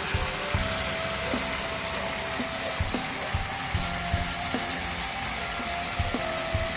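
Water pouring in a steady stream from a plastic tap into a full bucket: a continuous splashing hiss.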